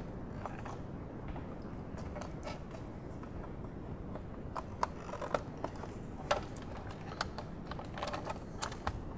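Small scattered plastic clicks and taps, a few around the middle and a cluster near the end, as a pick pries at and releases the plastic retaining tabs of an overhead-console power sunroof switch. Underneath is a low steady background hum.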